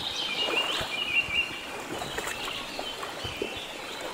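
Shallow stream trickling over a stony bed, with a small bird chirping and trilling in the first second or so.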